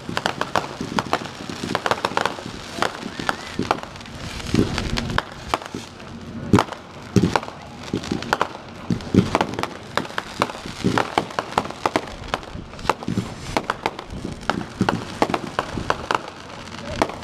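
Fireworks crackling and popping: a rapid, irregular run of sharp cracks from spark fountains and small bursts, some landing with a deeper thump.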